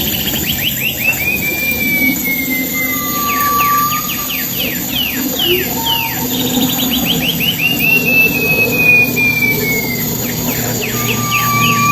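A pipi perak songbird singing loudly: a short steady whistle, then a run of quick down-slurred notes and a long whistle that slowly falls in pitch, the phrase repeating about every eight seconds.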